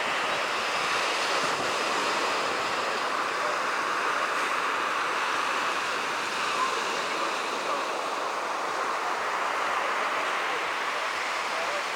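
Heavy sea surf breaking and washing up a pebbly beach: a steady, continuous rush of waves.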